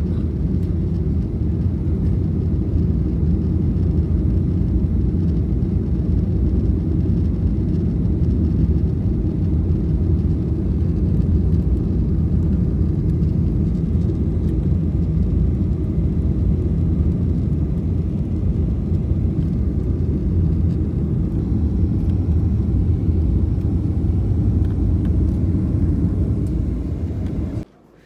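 Steady low rumble of airliner cabin noise, engines and airflow heard from a window seat as the plane comes in to land. It cuts off suddenly near the end.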